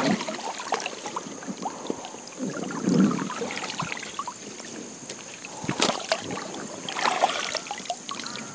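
River water splashing and trickling as a gill net is worked through the water, with a few light knocks, one about six seconds in.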